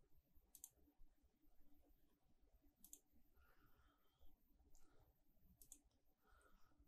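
Near silence with three faint computer mouse clicks, each a quick double press-and-release, about two to three seconds apart.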